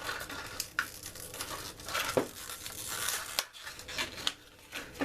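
Rustling and small clicks of parts being handled by hand, with a quieter pause a little past the middle.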